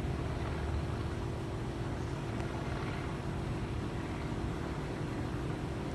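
Steady distant city rumble with a constant low hum.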